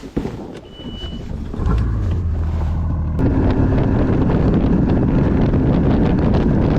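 Boat motor running as the boat gets under way, a steady low drone that starts about a second and a half in and jumps louder about three seconds in, with wind buffeting the microphone.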